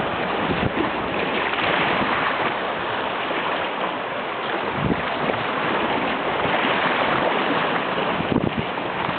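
Baltic Sea waves washing ashore in a steady rushing wash that swells and eases, with a few short low thumps.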